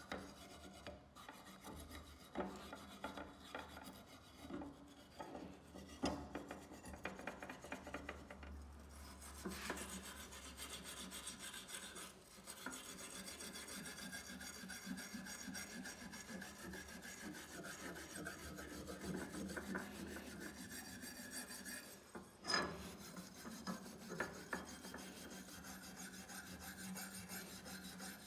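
Hand wire brush scrubbed back and forth over the rusty steel blade of a kukri, scraping off loose rust in rapid, uneven strokes, with one louder scrape about three quarters of the way through.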